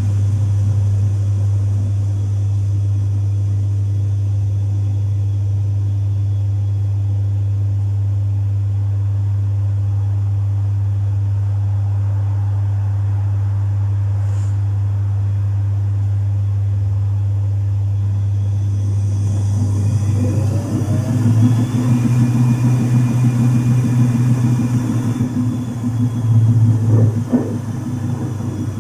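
Domus 8 kg washing machine running with a steady, even motor hum. About twenty seconds in, the sound turns rougher and pulsing with a brief rising whine, then swells louder near the end.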